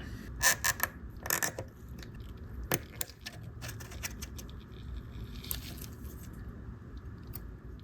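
Small sharp metal clicks and light scraping as a new white alloy mainspring is pressed into a pocket watch's mainspring barrel, with the clicks coming in a cluster at the start and a few scattered ones later.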